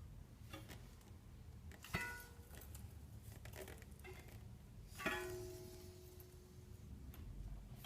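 A wheel squeaking: two short squeals about three seconds apart, each starting sharply and ringing on as a high-pitched tone that fades away.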